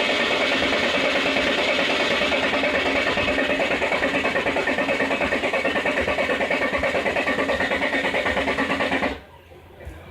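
Range Rover TD6 three-litre common-rail straight-six diesel being cranked on the starter, a steady pulsing churn of compression strokes that cuts off suddenly about nine seconds in. It is cranking for a hard-start fault while the crankshaft position sensor signal is checked.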